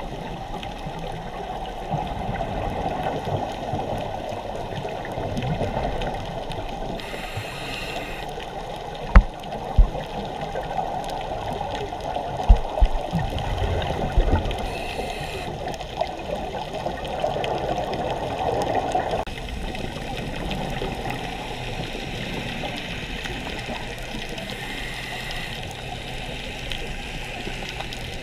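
Underwater sound through a dive camera housing: a steady bubbling, gurgling rush of water from scuba divers' exhaled bubbles, with a few short sharp knocks.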